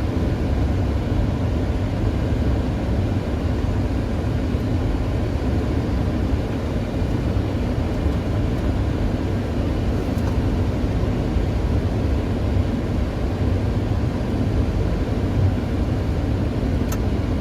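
Steady flight-deck noise of a Boeing 737-800 on final approach: airflow rushing past the cockpit over a constant low engine rumble.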